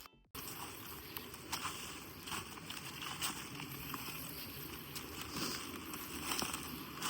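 Outdoor background noise: a steady hiss with scattered faint clicks and crackles, starting after a brief silence at the very beginning.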